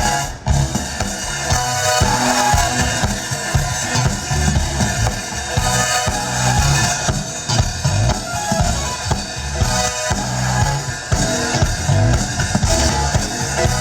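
Live funk band playing an instrumental groove, with drum kit and bass beating out a steady rhythm and guitar over it. A brief break comes just after the start.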